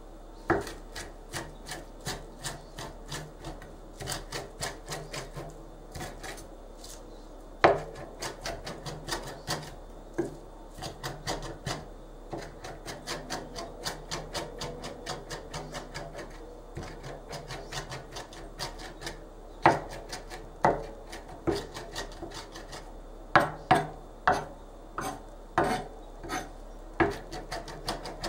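Mezzaluna rocking back and forth through a pile of leafy herbs on a concave chopping board: steady knocks of the curved steel blade on the board, about two or three a second, mincing the leaves. A few knocks are much louder than the rest.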